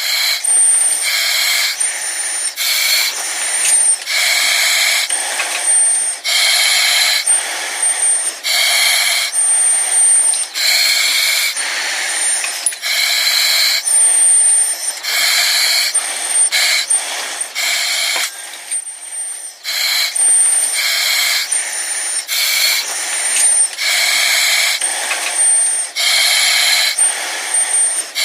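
Breathing through an oxygen mask: hissing breaths in and out in a steady rhythm, about one breath every two seconds, with a thin high whistle on many of them.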